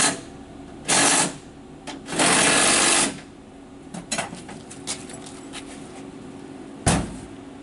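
Rattling bursts of a power tool, a short one about a second in and a longer one of about a second shortly after, over a steady low hum, with a few small clicks and then a single sharp bang near the end.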